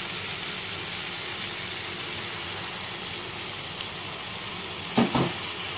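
Chicken and tomato masala sizzling steadily in a nonstick frying pan with a little water added to soften the tomatoes. Two quick knocks come near the end.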